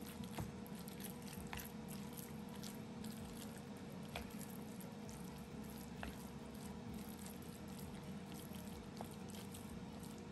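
Thinly sliced raw beef, wet with a soy-sauce, cornstarch and oil marinade, being stirred with wooden chopsticks in a bowl: soft wet squishing with scattered small clicks as the chopsticks work through the meat.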